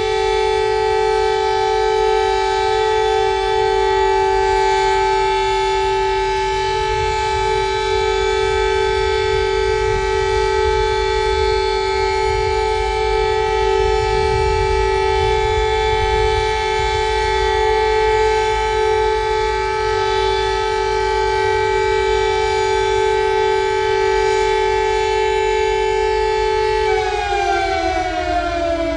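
Alternative Emergency Alert System alarm tone: a loud siren-like chord of several pitches with many overtones, held steady, over a low rumble. Near the end it glides downward in pitch.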